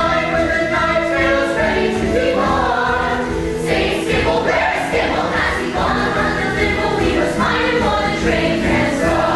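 Musical-theatre cast singing as an ensemble over instrumental accompaniment with a steady beat.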